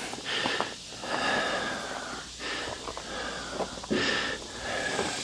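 A person breathing audibly close to the microphone, with several breaths in and out, each about a second long.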